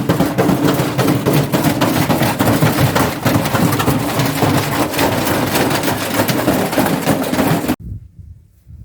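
Washing machine running with an 8 kg section of steel rail loose in its drum: a loud, continuous clattering and banging racket that cuts off suddenly near the end.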